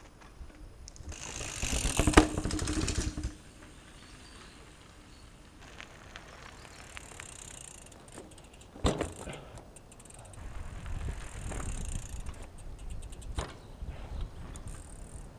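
Mountain bike ridden slowly at close range over gravelly ground, its tyres crunching unevenly, with a sharp knock from the bike about nine seconds in. A loud rustling clatter about two seconds in is the loudest thing.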